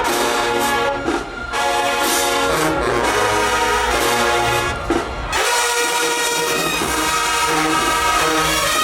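Marching band brass section playing loud sustained chords. About five seconds in, the low brass and bass drop out and the higher horns carry on.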